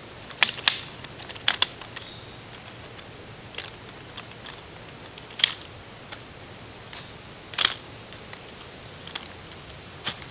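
Shock-corded aluminium pole sections of a folding camp chair frame snapping into their joints as they are guided together: sharp clicks, a few in quick succession in the first two seconds, then single ones every two seconds or so.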